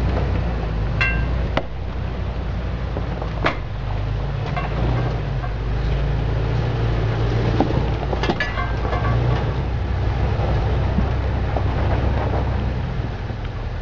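Off-road SUV engine running at low revs as it crawls over boulders, with a few sharp metallic clinks and knocks, a couple of them ringing briefly.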